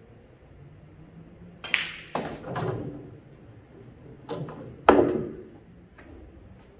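Pool balls knocking during a shot: the cue striking the cue ball, then balls hitting each other and the cushions, four sharp knocks with the loudest about five seconds in, the louder ones trailing off briefly.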